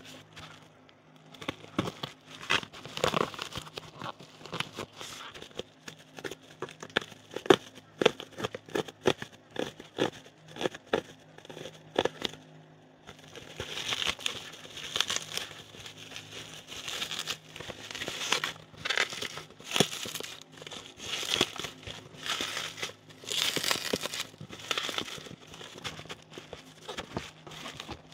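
Plastic bubble wrap handled close to the microphone. For the first part there is a run of separate sharp pops as bubbles burst. From about halfway on there is denser crinkling and rustling, with more pops mixed in.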